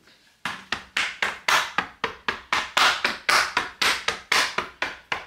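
Rapid, even chopping strikes, about four a second, like a knife working on a cutting board, starting about half a second in.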